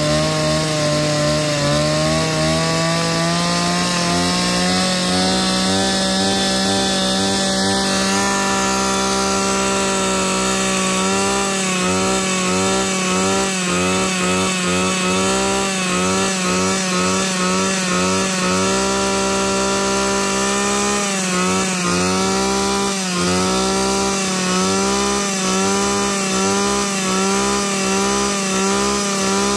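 The 35cc two-stroke engine of a Komatsu Zenoah BC3510 brush cutter runs unloaded at high revs. Its speed climbs over the first few seconds and then holds steady, with a couple of brief dips past the middle. It is held short of full throttle, since free-revving it flat out can wreck the engine.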